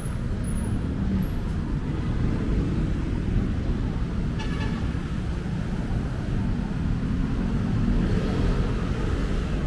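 Busy city street traffic: a steady rumble of passing vehicles, with a short pitched sound about four and a half seconds in.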